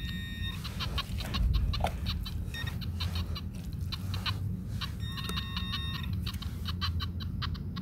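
Metal detector beeping in a rapid run of short, same-pitch pulses over a buried metal target, with the soil being dug around it.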